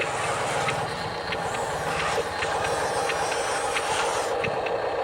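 Radio-controlled wheel loader running, a steady mechanical motor sound with scattered light clicks.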